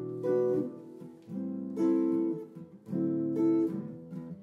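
Hollow-body archtop electric guitar playing chords in a slow ballad, each chord struck about every one and a half seconds and left to ring.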